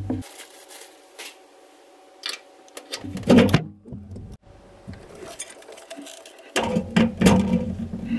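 Garbage disposal being unhooked from its drain pipe and sink mounting ring and swapped out: scattered clicks and knocks of metal and plastic fittings, with a louder clatter about three seconds in and again over the last couple of seconds.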